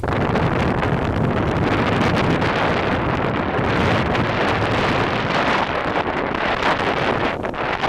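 Strong wind buffeting the microphone: a loud, steady rushing rumble over open, choppy water.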